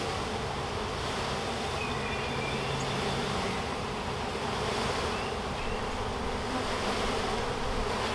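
Thousands of honeybees buzzing steadily as a package of bees is shaken out into an open hive box.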